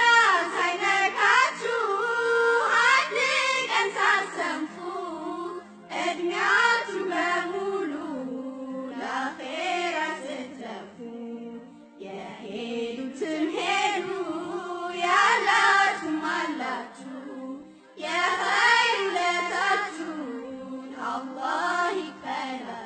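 A solo voice singing an Islamic devotional song in long melodic phrases of about six seconds each, over a steady low drone.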